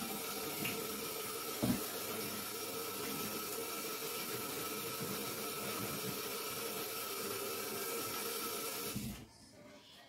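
Kitchen tap running steadily into the sink while something sticky with honey is washed under it, with a light knock about two seconds in; the water is shut off about nine seconds in.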